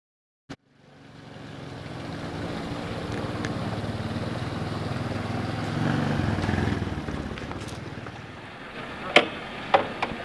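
Small motorcycle engine running as the bike rides up, growing louder, then easing off. A few sharp clicks and knocks follow near the end.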